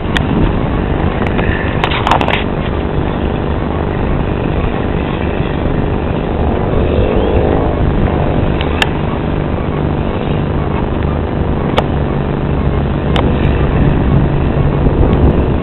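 Distant airliner's engines: a steady low rumble that grows a little louder near the end as the aircraft comes closer, with a few sharp clicks.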